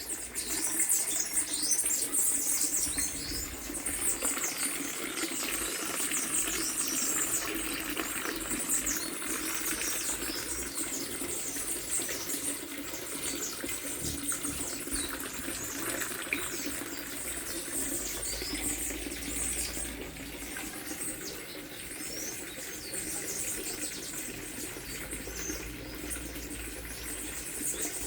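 Many birds chirping and chattering together in a dense, continuous chorus of short, high calls.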